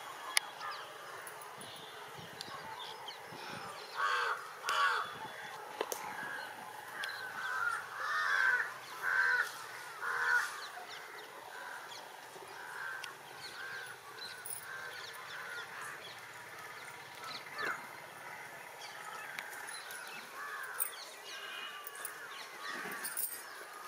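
Domestic fowl calling repeatedly in short honking calls, a quick run of them a few seconds in, then fewer and more spaced out.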